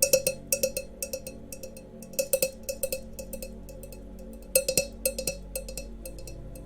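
Glass goblets tapped and clinked together in quick clusters of taps, each tap ringing briefly. The busiest clusters come at the start, about two seconds in and about four and a half seconds in.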